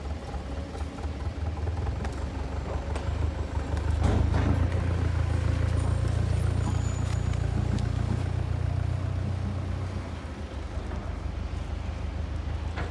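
Heavy diesel dump-truck engines running with a steady low rumble. The rumble grows louder about four seconds in, with a sharp knock at that moment, and eases off again near ten seconds.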